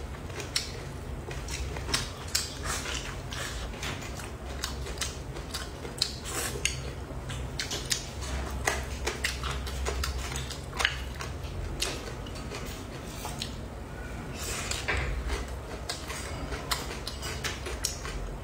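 Eating sounds: chewing and mouth smacks, with many short clicks of chopsticks against a bowl scattered throughout.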